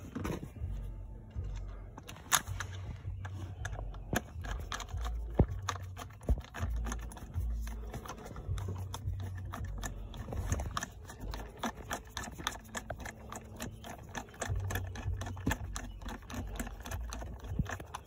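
Irregular small clicks and taps of screws and plastic cover parts being handled and fitted to a jet boat's throttle and shift control housing, over a low rumble.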